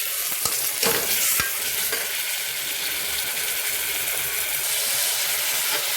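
Ginger-garlic paste and green chillies frying in hot oil in a pressure cooker, sizzling steadily, with a few clicks of a spoon against the pot in the first second or so as it is stirred.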